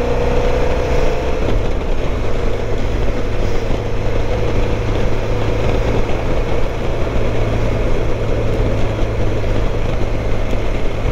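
Motorcycle engine running steadily at road speed under heavy wind and road noise on the bike-mounted microphone; the engine note rises a little in the first second or so.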